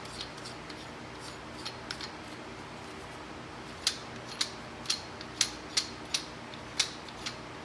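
Light metallic clicks of a threaded spring seat ring being spun by hand down the threaded body of a QA1 coilover shock: a few scattered clicks at first, then about two a second in the second half, over a faint steady hum.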